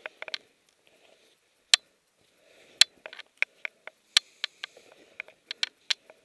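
Snow shovel digging into deep, packed snow: irregular crunches of snow with a quick series of sharp knocks and clicks, more of them in the second half.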